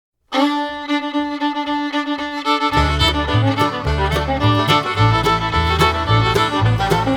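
Background music: a melody starts just after the opening, and a bass line with a steady beat comes in about two and a half seconds later.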